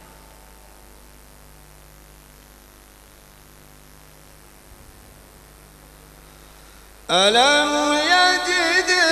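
A steady electrical hum during a pause in a man's Quran recitation through a microphone; about seven seconds in the reciter's voice comes back loudly, sliding up in pitch into a long melodic phrase with wavering held notes.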